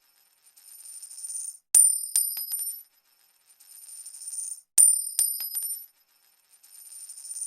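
Looped coin-drop sound effect: a coin hits a hard surface with a bright metallic clink and a high ring, then bounces a few more times, quicker and quieter. It repeats about every three seconds, twice here, each drop led in by a short rising hiss, and a third hiss builds near the end.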